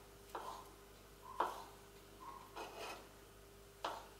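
Small kitchen knife cutting a fig on a plastic cutting board: about four light cuts, each ending in a short tap of the blade on the board, roughly a second apart.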